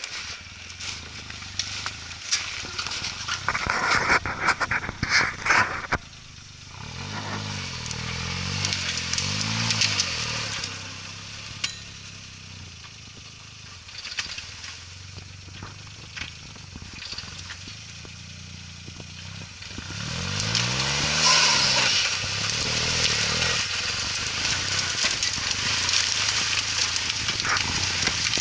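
Suzuki Jimny engine running under load in snow, its revs rising and falling in two spells, over a steady crunching of tyres through snow.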